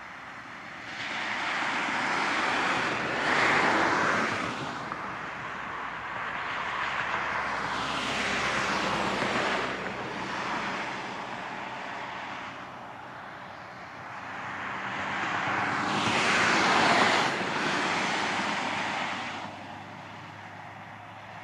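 Three passes of vehicle noise, each swelling up and fading away over about four seconds, over a faint low hum.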